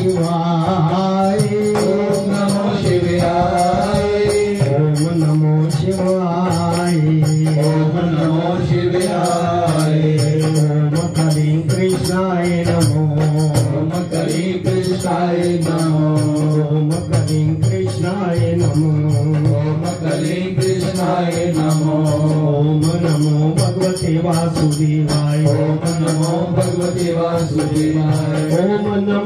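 Devotional mantra chanting (kirtan) sung by a man into a microphone, over a steady low drone and a fast, even ticking of hand percussion.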